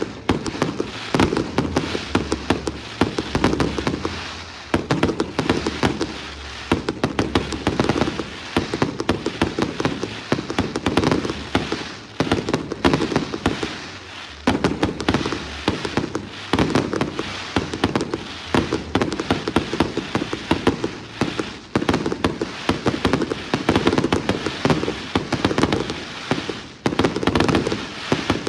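Fireworks display in full barrage: a dense, unbroken run of rapid bangs and crackle, firing several times a second.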